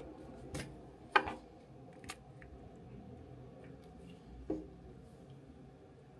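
A plastic squeeze tube of face cleanser being handled and squeezed: a few sharp clicks, the loudest about a second in, and a short squish about four and a half seconds in.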